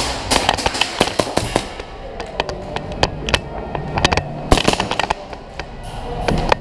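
Airsoft gunfire: irregular sharp pops and snaps, some coming in quick runs of several shots.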